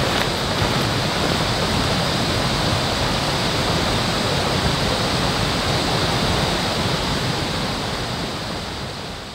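Steady rushing noise, fading out near the end.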